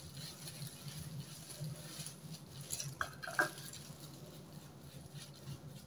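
Faint squishing and rustling of plastic-gloved hands and an applicator brush working hair dye through wet hair, with a couple of short squeaks about three seconds in.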